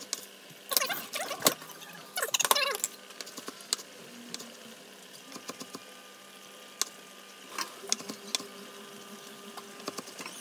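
Chef's knife chopping chorizo on a wooden chopping board: quick runs of knife strikes against the board near the start and again about eight seconds in, with scattered single taps in between.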